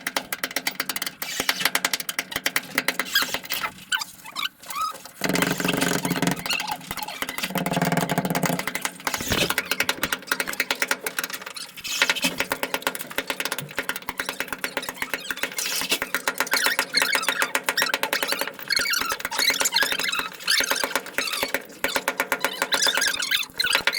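Sped-up work sound from pipe installation: a rapid, dense run of clicks and knocks with high, squeaky chatter, raised in pitch by the fast motion.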